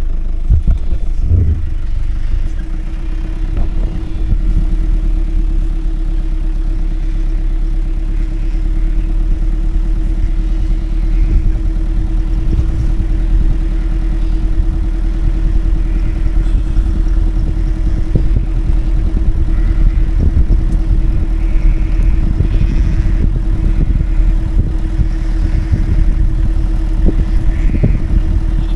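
Ute engine running while driving, with a steady drone and low rumble. Frequent knocks and rattles run through it.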